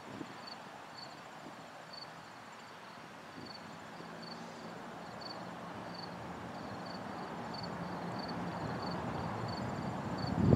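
Crickets chirping in an even rhythm, about two to three high chirps a second, with a faint steady higher trill, over a steady rushing background that slowly grows louder.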